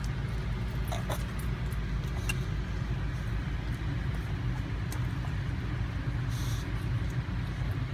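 Steady low mechanical hum of the van's running engine, heard from inside the van, with a few light metal clicks from a dental hand scaler on a small dog's teeth and a brief rustle about six seconds in.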